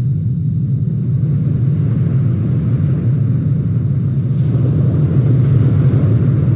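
Car driving at a steady speed: a continuous low rumble of engine and road noise, with a little more tyre hiss near the end.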